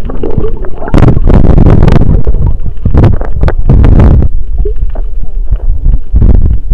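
Muffled water sloshing and splashing against an action camera held just under the surface, heard through its built-in microphone as a heavy, distorted rumble with several louder surges.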